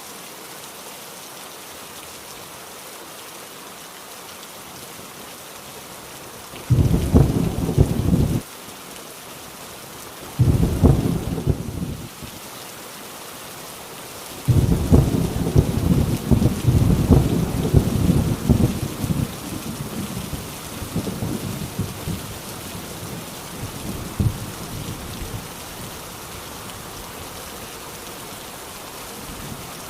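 Heavy rain falling steadily, with rolls of thunder: two short rumbles about seven and ten seconds in, then a longer roll from about fifteen seconds in that slowly dies away.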